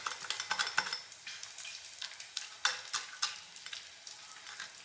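Metal spoon mashing steamed pumpkin through a wire-mesh strainer, scraping and clicking against the mesh and bowl in irregular strokes, busiest in the first second.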